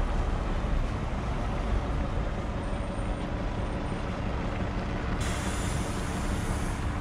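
Steady city traffic noise with wind rumbling on the microphone; a higher hiss joins about five seconds in.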